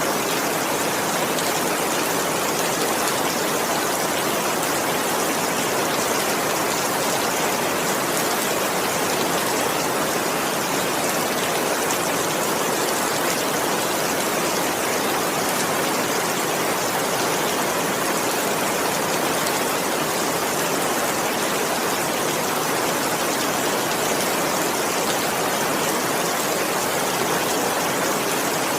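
Heavy rain falling steadily, an even unbroken hiss without thunder.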